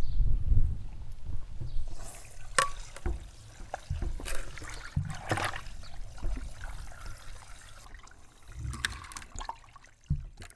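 Liquid trickling and splashing, with a few short knocks and low rumble.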